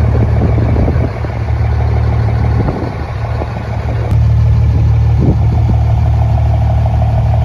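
Truck engine running loud and steady, easing off for a few seconds and picking up again about four seconds in.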